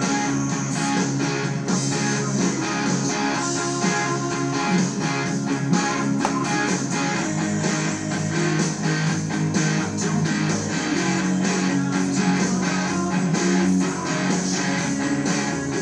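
Electric guitar strummed in a steady, fast rhythm of rock chords.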